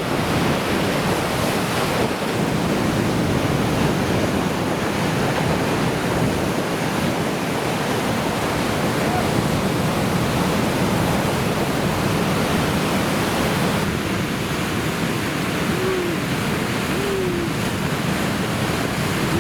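Large typhoon-swell surf breaking in a steady, dense rush of white water, with wind on the microphone.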